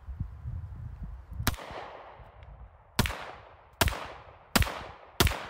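A Rock Island Armory TAC Ultra CS 1911 pistol in 9mm firing hollow-point rounds, five shots in all: one about a second and a half in, then four more in quicker succession, each with a short ringing tail. Before the first shot, wind rumbles on the microphone.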